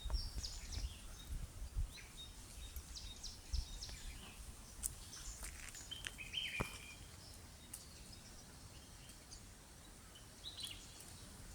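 Small birds chirping in short, scattered bursts, over a low rumble of wind or handling noise.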